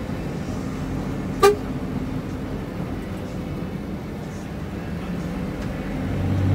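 Inside a moving bus: the Fuso Panther's diesel engine running steadily, with one short horn toot about one and a half seconds in. The engine grows louder near the end.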